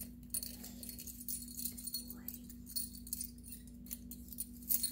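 Small metal jingling and rattling, repeated many times: a dog's collar tags and leash clasp jangling as the leash is clipped onto the collar, over a steady low hum.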